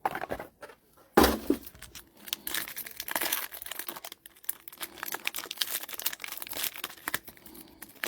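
Plastic card packaging being crinkled and torn open by hand, a dense crackling throughout, with a louder knock about a second in.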